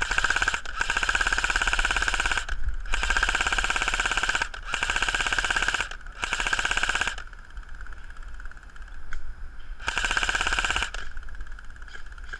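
G&P Stoner 63 airsoft electric machine gun firing six long full-auto bursts, the gearbox cycling rapidly, with a pause of nearly three seconds before the last burst.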